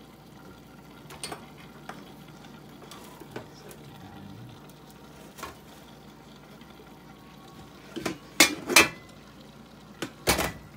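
Cookware clatter at a stew pot with a glass lid: a few light clicks, then several loud sharp knocks and clanks of the lid and a utensil against the pot near the end.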